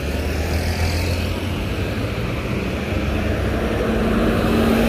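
Street traffic with buses running past: a steady engine hum under road noise, growing a little louder with a new held engine tone near the end as a bus passes close by.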